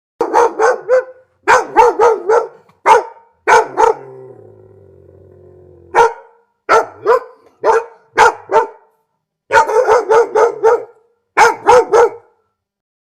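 Dog barking repeatedly in quick runs of short barks, with brief pauses between the runs.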